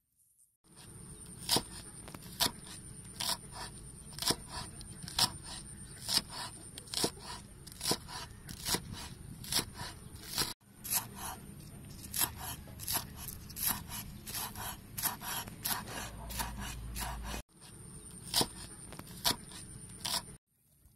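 A cleaver slicing and then chopping an onion on a wooden chopping block: a steady run of knife knocks on the wood, about one louder knock a second with lighter ones between, over a steady high-pitched hiss. The run breaks off briefly twice.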